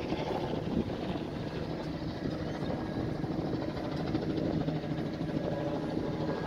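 A steady low rumble, like a vehicle or engine running at a distance, with wind on the microphone.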